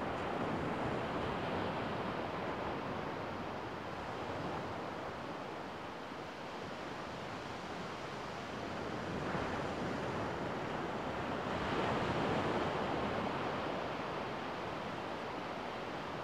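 Small sea waves breaking and washing up a sandy beach: a steady hiss of surf that rises and falls as the waves come in, loudest about three-quarters of the way through.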